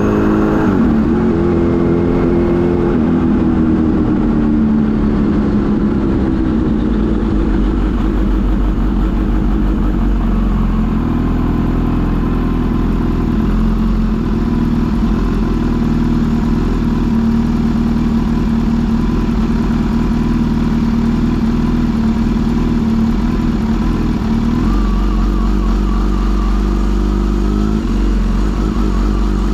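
Kawasaki Z H2 SE's supercharged inline-four engine heard on the move: revs fall over the first few seconds, the note holds steady while cruising, and revs climb again near the end.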